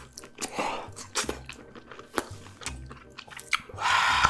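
Close-miked chewing of a mouthful of cheese-coated corn dog: soft, wet mouth clicks and smacks. Near the end comes a louder rushing noise.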